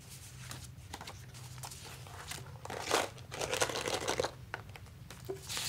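Paper and stationery rustling as kit items are handled and lifted out, with louder rustles about three and four seconds in.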